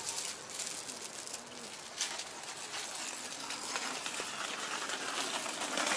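Outdoor street-market ambience heard while walking: footsteps on paving stones over a steady background hum of the surroundings, with a single sharper knock about two seconds in.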